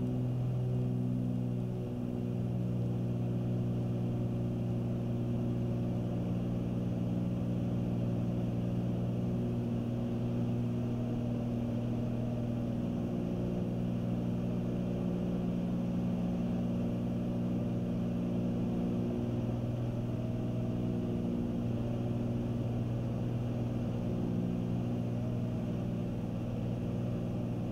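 Cabin drone of a Cessna 310Q in flight, its two piston engines and propellers running steadily at cruise power. A faint higher tone drifts slowly up and down over the low hum.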